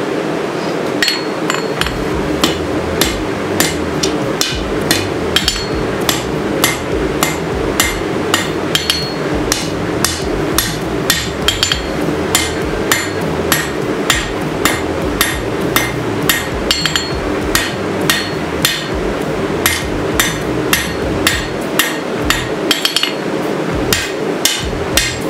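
Hammer blows on hot 5160 spring steel on the anvil, forging a sword's tang and point: sharp ringing strikes at about two a second, over a steady low hum.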